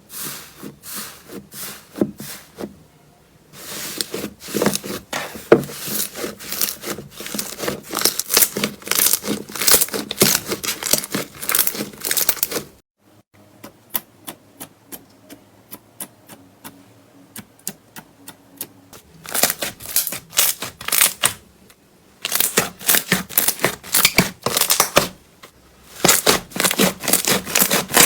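Slime being squeezed and worked by hand, giving dense runs of sharp crackling and clicking pops, with sparser single clicks between the runs.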